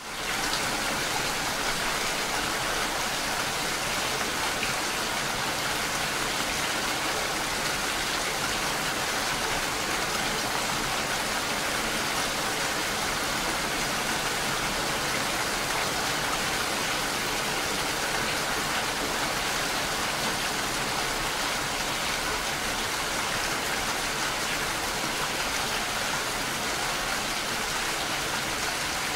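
Heavy cyclone rain pelting the vehicle's windscreen and body, a steady, unbroken hiss heard from inside the vehicle.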